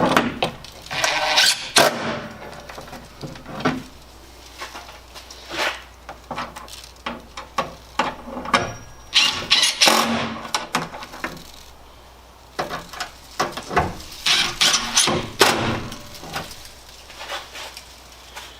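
Irregular clicks, knocks and rattles of tools and tailgate hardware being handled while a tailgate latch is fitted.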